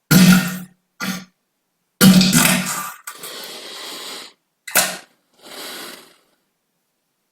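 A string of separate human farts cut together with dead silence between them. Short buzzing blasts with a low rasp come at the start and about a second in. A long one about two seconds in trails off into a quieter hissing release. Then a short sharp blast and a faint hiss follow.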